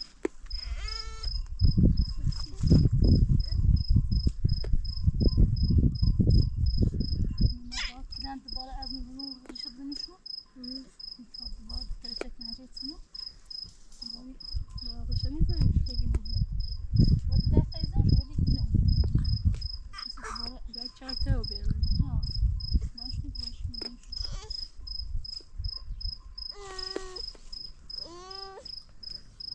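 A cricket chirps steadily throughout in high, evenly spaced pulses. Loud low rumbling and knocking comes in two stretches of several seconds, near the start and again midway, and these are the loudest sounds. A few brief pitched calls that bend in pitch come near the end.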